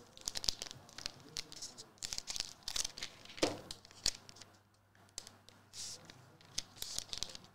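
Magic: The Gathering collector booster pack's foil wrapper being torn open and crinkled in the hands: a run of sharp crackles with a short pause partway through.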